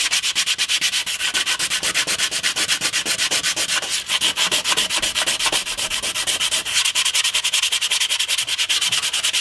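80-grit sandpaper on a hand block rubbed back and forth over a cured carbon-fibre composite patch, in rapid, even strokes, several a second. It is smoothing down the edges of the patch where it blends into the blade.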